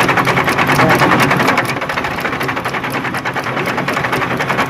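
Isuzu 6BG1 six-cylinder diesel engine cranking on its starter motor in a rapid, even rhythm without catching. It is the hard-starting fault that the mechanic puts down to worn injection-pump plungers.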